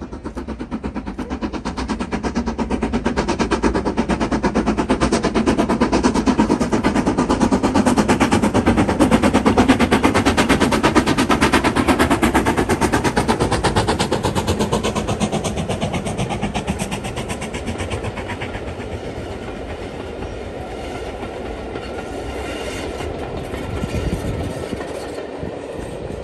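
Steam train passing: the locomotive's rapid, even beat and the clatter of its carriages on the rails. It swells to its loudest about ten seconds in, then fades as the carriages pull away.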